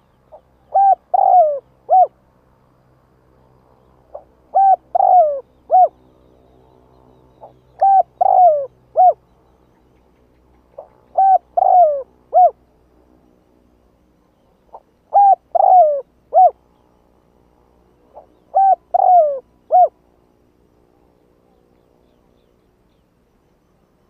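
A spotted dove cooing. It gives six phrases, one about every three and a half seconds. Each is a soft lead-in note and then three coos, the middle coo longer and falling in pitch. The calls stop a few seconds before the end.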